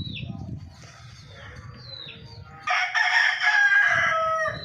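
A rooster crows once, about two and a half seconds in: one loud call of nearly two seconds that falls in pitch at its end. Short, high, falling chirps come before it.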